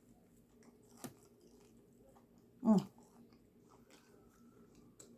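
A person chewing a mouthful of grinder sandwich, faint wet mouth sounds with a click about a second in. Halfway through comes a short voiced sound falling in pitch, like an 'mm' of enjoyment.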